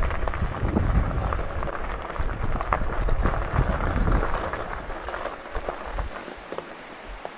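Wind buffeting the microphone while moving along a trail, a rough low rumble with scattered clicks and crackle, easing off after about five seconds.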